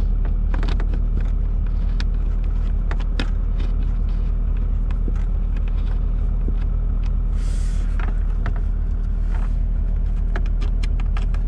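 A Saab 900's engine idling with a steady low hum, with scattered small clicks and taps as the plastic dashboard speaker grille and its screw are worked loose by hand. A short hiss comes about two-thirds of the way in.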